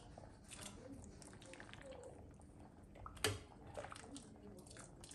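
Metal ladle scooping pepper-soup broth in a glass pot, with liquid dripping and small clinks, and one sharper clink about three seconds in.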